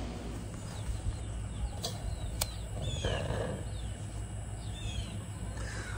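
Birds chirping: a few short, falling high chirps over a steady low hum, with two sharp clicks about two seconds in.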